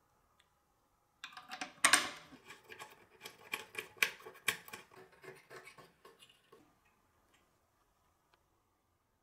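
Metal thumb screw being turned by hand into the metal frame of an antique pedal scroll saw, making a run of metallic scrapes and clicks for about five seconds, the loudest one near the start.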